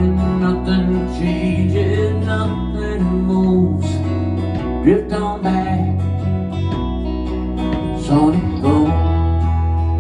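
Live band music: an instrumental passage of a rock song, strummed acoustic guitar over a steady bass line, with a few sliding notes.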